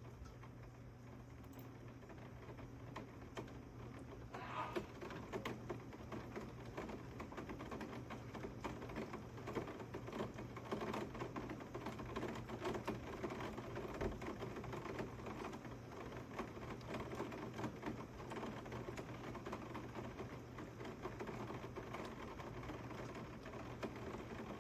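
Heavy rain falling, heard as a dense, irregular ticking of drops hitting a surface, which grows louder about four and a half seconds in. A steady low hum lies underneath.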